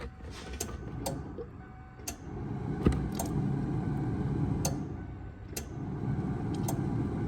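Electric fuel pump running to prime the fuel system of a Ford 5.0 V8: a steady low hum that comes up about two seconds in, with a few scattered sharp ticks over it.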